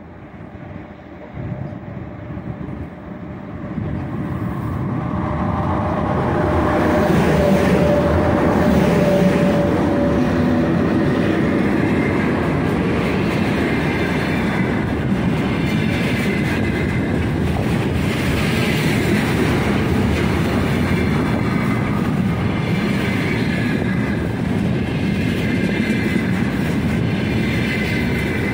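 A 3ES5K 'Ermak' electric locomotive hauls a container freight train up and past at close range. The sound builds over the first several seconds as the train draws near, then holds steady as the wagons' wheels roll by on the rails.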